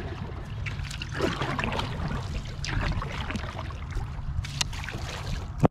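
Water swishing and trickling along a pirogue's hull as it glides after a single stroke, with short splashes and a low rumble underneath. A sharp click comes just before the end.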